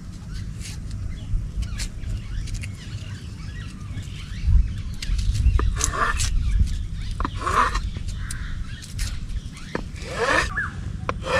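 A few bird calls, about six, seven and a half and ten seconds in, over light taps of a knife cutting paneer on a wooden chopping board and a steady low rumble.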